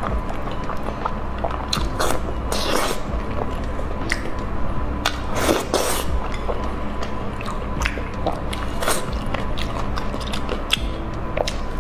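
A person chewing and biting food close to the microphone, with many short, sharp mouth clicks and smacks, over background music.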